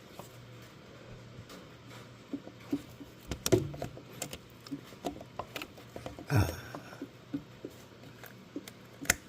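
Scattered light clicks and knocks of hands working a plastic radiator hose T-fitting, trying to break a piece away from it, with a brief louder scrape a little past six seconds in and a sharp click near the end. A faint steady low hum runs underneath.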